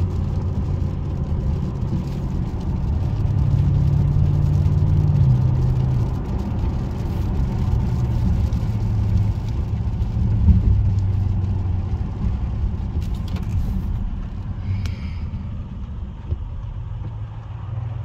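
A 2017 Audi S8's twin-turbo V8 under way, heard from inside the cabin along with tyre noise on a wet road. The engine note rises for a few seconds, drops back about five seconds in, and the sound eases off toward the end.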